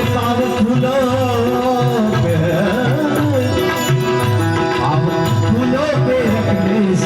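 Indian devotional song music: a wavering, ornamented melody line over a steady hand-drum rhythm.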